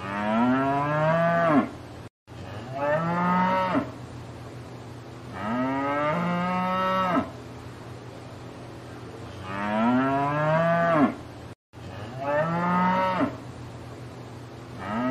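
Cow mooing: about five long moos, each a second or two long, a few seconds apart.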